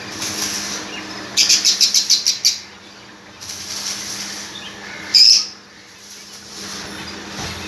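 Zebra finches calling: a quick run of about eight short high chirps a little over a second in, and one loud sharp call about five seconds in, over a steady low hum.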